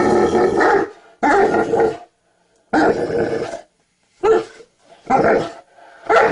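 English Mastiff grumbling and growling in protest at being pulled off the bed: a run of drawn-out vocal grumbles, the first few long and the later ones short and clipped, about a second apart.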